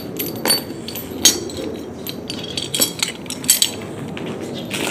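Steel links of a broken tractor chain clinking and a wrench clanking as they are handled and picked up: a series of separate sharp metallic clinks, a few with a short ring.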